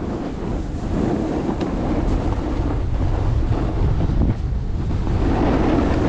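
Wind buffeting the microphone: a steady low rumble with a hiss above it, growing a little louder about a second in.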